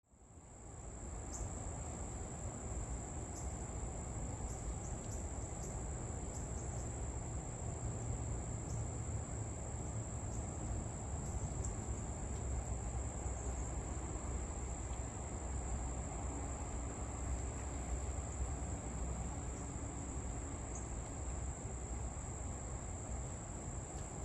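Insects trilling steadily in one continuous high-pitched drone, with a low outdoor rumble underneath.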